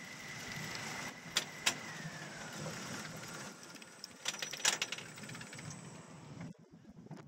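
Gerstlauer family roller coaster train on its lift hill: a steady mechanical whine from the lift drive that falls in pitch about two seconds in, as the train slows toward the crest, with sharp metallic clanks from the track and train, two close together early on and a cluster near the middle.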